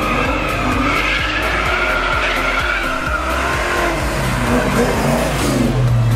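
Cars driving off from a car meet, engines revving. A high, wavering tire squeal runs through the first half.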